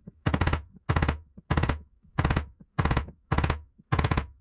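Wood chisel being tapped down into hardwood, making a row of angled cuts to chop out the waste of a hinge mortise. Seven short clusters of rapid, sharp wooden taps come about every half second.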